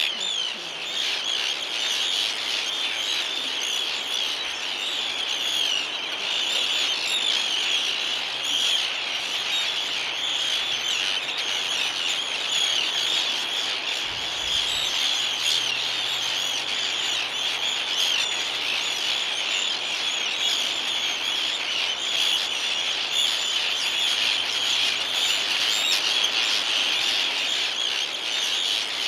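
A breeding colony of terns, mainly Arctic terns, calling all at once: a dense, unbroken chorus of many overlapping high, harsh calls.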